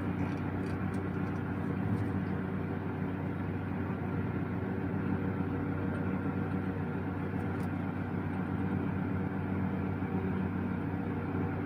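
A steady low hum with an even, buzzing pitch, with a few faint handling clicks.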